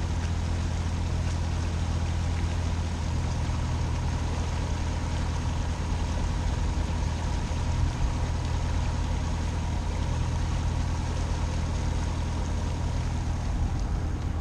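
Motor cruiser's engine running steadily under way, a low even hum that holds throughout.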